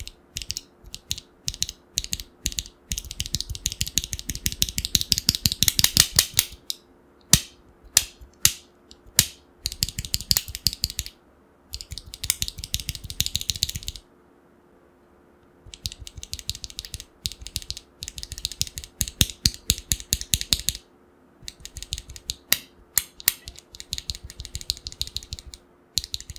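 Typing on a mechanical keyboard fitted with Akko Vintage White linear switches: fast runs of keystrokes broken by slower single presses and a pause of about a second and a half past the middle. Each key press has a crisp, poppy clack.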